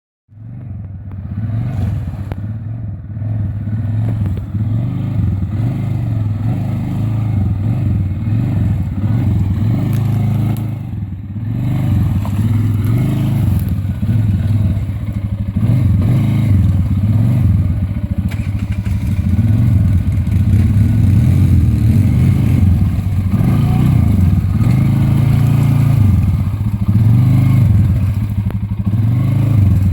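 ATV engine running, its sound rising and falling, with a brief drop in level about eleven seconds in.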